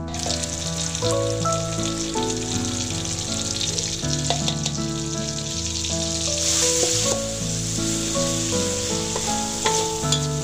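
Ground chilli spice paste (shallot, garlic, chilli, tomato, shrimp paste) sizzling in hot oil in a wok: the hiss starts at once as the paste goes in and runs on while a metal spatula stirs and scrapes it a few times. Background instrumental music plays over it.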